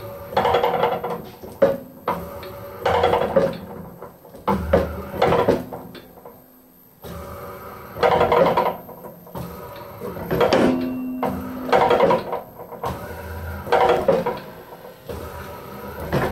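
Scrap-built 100 lb trip-style power hammer cycled in about eight short bursts from its foot pedal. Each time, the frequency-driven electric motor and gearbox spin up and stop, with clunks from the swinging hammer arm.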